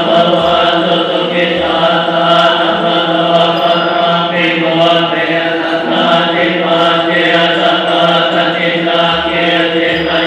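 Group Buddhist chanting: many voices reciting together on one steady low pitch in a monotone.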